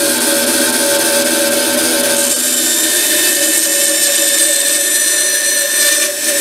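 Bandsaw running and cutting wood, nibbling out the waste between dovetail tails: a steady machine hum with the rasp of the blade in the board, dipping briefly near the end.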